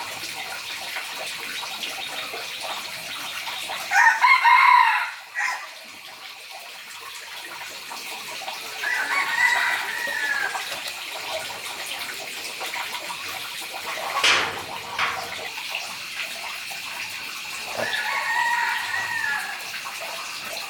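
Rooster crowing three times, each crow about a second and a half long; the first is the loudest. A single sharp knock falls between the second and third crows.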